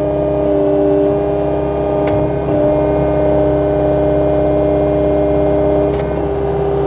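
Cat 259 skid steer running under load, a steady machine whine made of several held tones over a low engine rumble. The whine shifts slightly about two and a half seconds in and again near six seconds.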